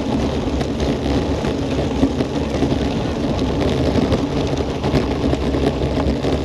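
Wind rushing over the microphone of a camera on a fast-moving racing bicycle, with the tyres rumbling and crunching steadily over a gravel road.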